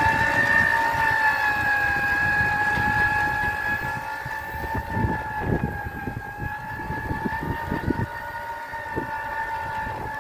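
Homemade electric tiller running: its 60 V 1.5 kW BLDC motor and 15:1 reduction gearbox give a steady high whine that wavers slightly in pitch. Underneath, irregular low crunching, strongest in the middle, as the rotary tines break up dry soil.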